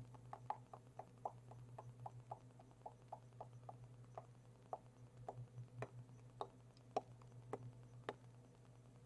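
A quick run of light clicks, about four a second, then a few sparser, sharper clicks over a steady low hum.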